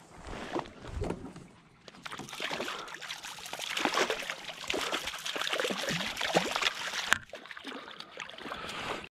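A hooked rainbow trout thrashing and splashing at the water's surface beside a kayak as it is brought to the landing net. The splashing grows heavier about two seconds in and cuts off suddenly near the end.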